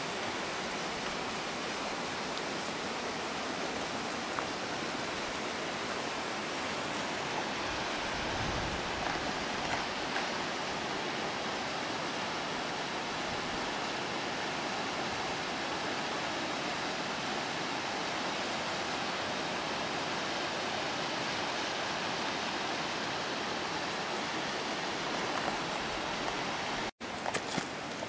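Steady rush of running and falling water from a mountain stream and waterfall. The sound drops out briefly about a second before the end.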